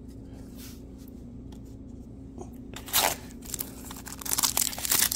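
Foil wrapper of a Topps baseball card pack crinkling and tearing open. The sound starts with a sharp crackle about three seconds in and turns into dense crinkling near the end.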